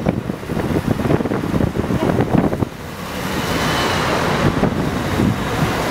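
Wind buffeting the camera microphone in uneven gusts over the hum of busy road traffic. About two and a half seconds in the gusting drops away, leaving a steady wash of traffic noise.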